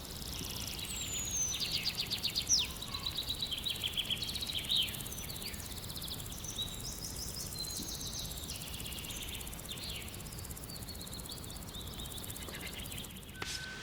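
Small birds singing and calling: quick runs of high repeated chirps and a few short whistled notes, over a steady low background rumble.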